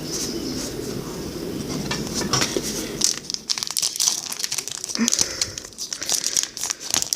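Foil wrapper of a baseball card pack crinkling and tearing as it is opened, with the cards rustling in the hands.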